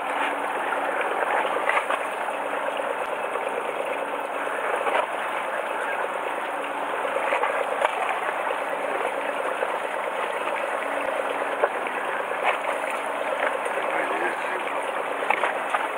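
Fishing boat's engine idling steadily, with a few faint clicks.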